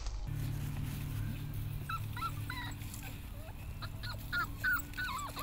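Wheaten terrier puppy whimpering, a string of short high whines and yips that starts about two seconds in, over a steady low hum.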